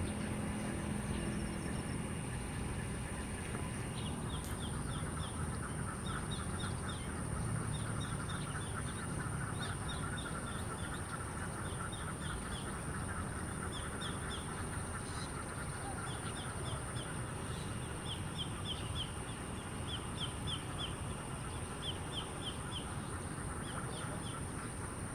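Birds calling: a dense, steady chatter of many birds, with runs of three to five short, high chirps repeating every second or two. A steady high-pitched tone runs underneath.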